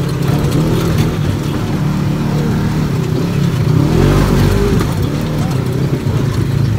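Polaris RZR side-by-side's engine running under way, its revs rising and falling.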